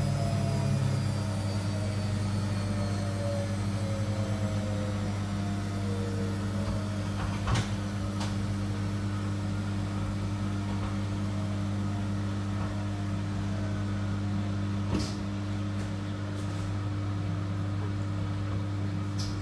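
Arctic APL61015XLW0 washing machine running with a steady low hum. Its motor whine falls in pitch over the first several seconds as the drum slows. A few sharp clicks or knocks break in, the loudest about seven and a half seconds in.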